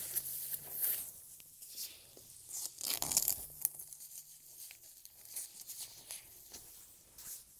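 Hook-and-loop (Velcro) strips on a travel cot's base board being pulled through and pressed into place: short, irregular ripping sounds mixed with fabric rustling, loudest about three seconds in.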